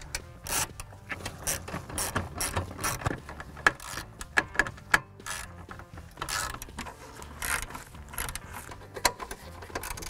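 Hand ratchet clicking in irregular runs of sharp ticks as it drives in the two screws that hold the hood release handle.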